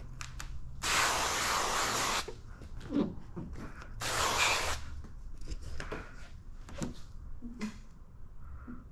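Spray bottle misting liquid in two long hisses, the first about a second in and a shorter one about four seconds in, with small clicks and brief squeaks of handling between them.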